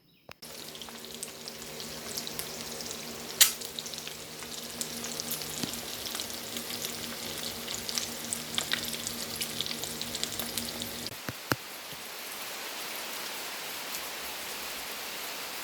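Steady rain falling, a crackling hiss with scattered drop clicks, over a low steady hum that stops about eleven seconds in.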